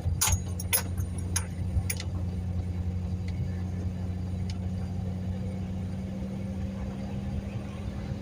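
Truck driving slowly, heard from inside the cab: a steady low engine and road hum, with a few sharp ticks or rattles in the first couple of seconds.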